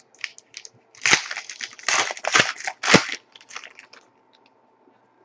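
Trading-card pack wrapper crinkling and crumpling in about four short, loud bursts over the first three seconds, then lighter rustling.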